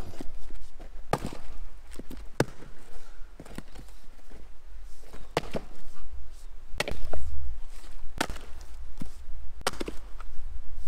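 Firewood being chopped: a series of sharp wooden chops, roughly one every second and a half, with a short pause about three to five seconds in.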